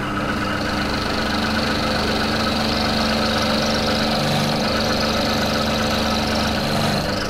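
Milling machine running in back gear while its 8 mm cutter is fed down into the end of a metal shaft: a steady cutting noise over the machine's drive hum. The cutting sound stops shortly before the end, leaving the drive running.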